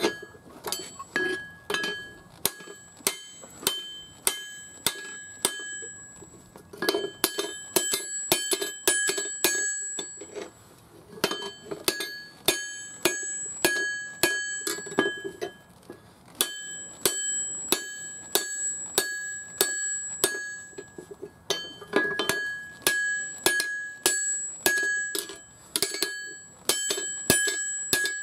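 Hand hammer striking a hot axe head on a steel anvil, with a clear bell-like ring after every blow. Steady blows come about two to three a second in runs of several seconds, with brief pauses between runs.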